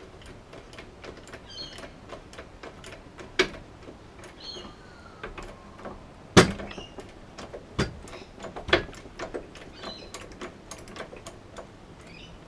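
Hydraulic bottle jack pumped in a welded homemade press, forcing the corrosion-seized pivot tube out of an outboard's steering bracket. Light clicks run under several sharp cracks as the parts give under load; the loudest crack comes a little past halfway.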